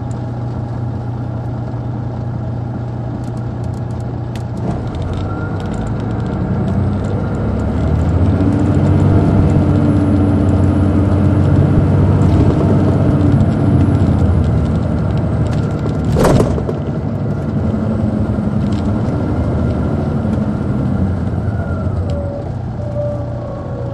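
The Detroit Diesel Series 60 diesel of a 2002 MCI D4500 coach, heard from inside the bus. It runs steadily, then pulls harder and louder for several seconds with a high whine over it. It eases back after a sharp thump about two-thirds of the way through.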